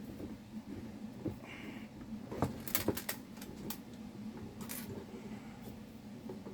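Scattered sharp clicks and taps with a short scrape, from hands and a tool working the plastic housing of a Labradar radar chronograph apart during disassembly.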